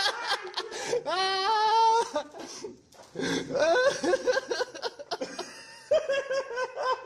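Laughter, in several bouts, with a long rising, wavering vocal sound about a second in.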